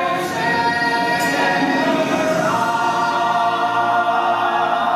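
A chorus of voices singing long held notes over backing music, with the chord shifting to new notes about halfway through.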